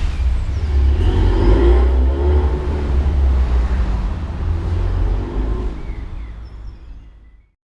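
Low engine and road rumble of a 2015 Ford Mustang with the 2.3-litre EcoBoost turbocharged four-cylinder, driving. It fades out over the last two seconds to silence.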